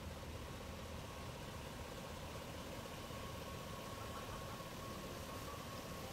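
Faint, steady outdoor background rumble with a thin, steady high whine running through it.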